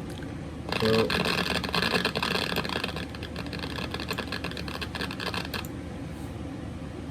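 Consumer firework fountain spraying and crackling, a dense hiss of fine crackles that starts about a second in and cuts off suddenly near the end.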